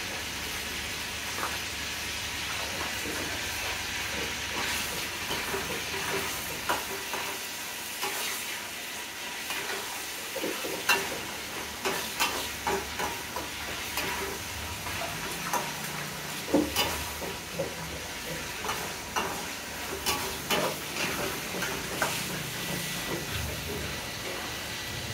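Food sizzling steadily in hot oil in a wok on a gas burner, while a metal spatula stirs it, scraping and clinking against the pan; the clinks come more often in the second half.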